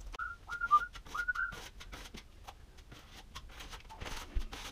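A man whistling a short run of quick notes for about a second and a half, over scattered light clicks and scrapes of drywall tools.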